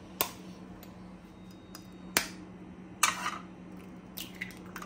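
A steel spoon tapping a raw egg's shell to crack it: three sharp taps, the third about three seconds in with a short crackle as the shell gives, then a few lighter clicks near the end as the shell is pried apart. A steady low hum runs underneath.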